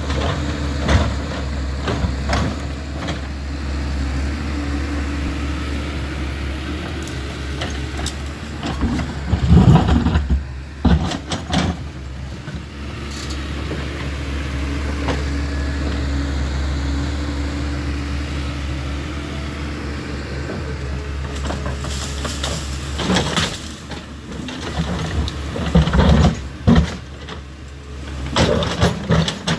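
Caterpillar 320C hydraulic excavator working, its six-cylinder diesel engine running steadily under load with a constant low drone. Several loud clusters of cracks and knocks break in as the bucket works through brush and branches: about ten seconds in, twice in the later part, and again near the end.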